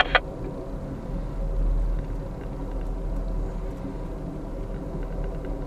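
Steady low rumble of a passenger train running along the track, heard from inside the car.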